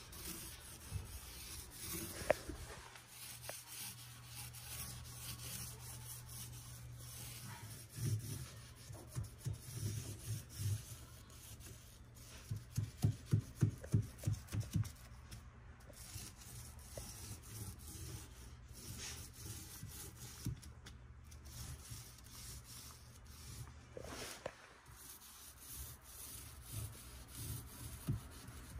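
Mini paint roller being rolled back and forth along a cabinet's face frame, a soft steady rubbing, with runs of quick low thumps from the strokes about a third of the way in and again about halfway.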